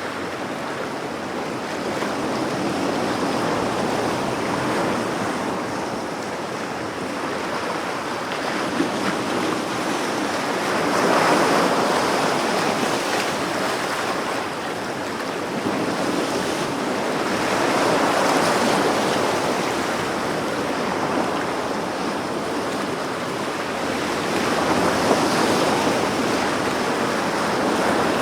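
Sea waves washing onto a shore, a continuous rushing noise that swells and ebbs every several seconds as each wave breaks.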